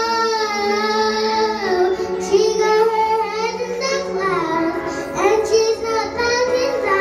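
A young girl singing into a microphone over a backing track, holding long notes that slide up and down in pitch.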